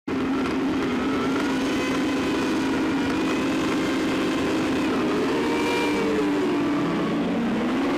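Superbike engines running, several at different pitches, mostly steady, with one dipping in pitch and then rising again near the end.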